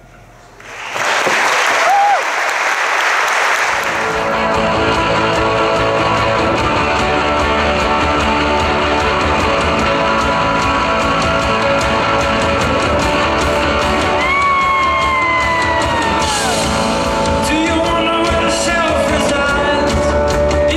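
Live band music, loud and full: after a brief dip, a short rush of noise gives way to sustained playing with a steady bass and held notes, and about two-thirds of the way in a high note slides downward.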